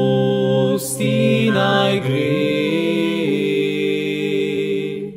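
A pop song's long held sung notes over the accompaniment, with short breaks about a second and two seconds in, dropping away at the very end.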